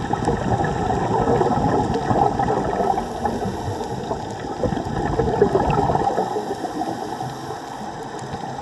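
Churning, gurgling water noise that rises and falls without a steady rhythm.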